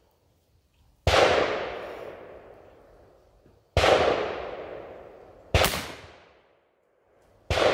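Four shots from a .44-calibre Pietta replica 1862 Dance cap-and-ball revolver loaded with black powder, spaced about two seconds apart. Each is a sharp report with a long fading tail.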